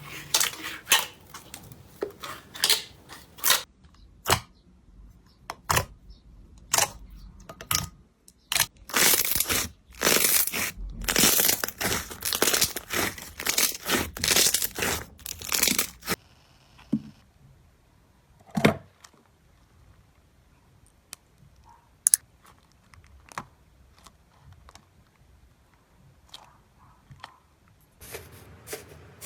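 Slime being pressed, stretched and poked by hand, giving crackling pops and crunches: a dense run of crunching in the middle, then sparse faint pops near the end.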